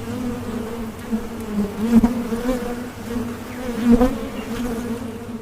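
Bees buzzing in a steady, slightly wavering drone that swells louder about two seconds in and again about four seconds in.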